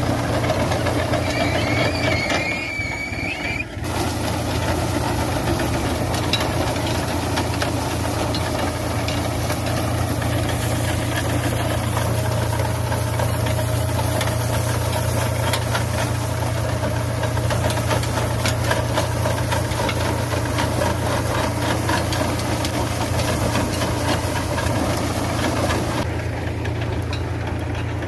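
Tractor engine running steadily while pulling a potato digger through the soil, with the digger's chains and frame clattering.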